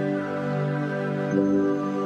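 Background music with slow, sustained chords, the chord changing once about two-thirds of the way through.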